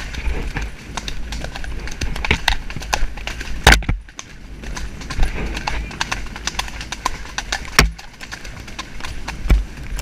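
Hoofbeats of a ridden horse cantering along a soft dirt woodland track, a quick run of muffled strikes, with a couple of louder knocks near the middle and again about two-thirds of the way through.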